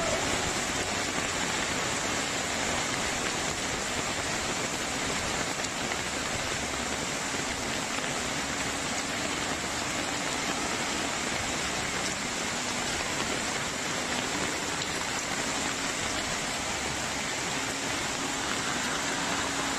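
Steady rushing hiss of heavy rain together with fast-flowing brown floodwater running down a street, with no breaks or strikes.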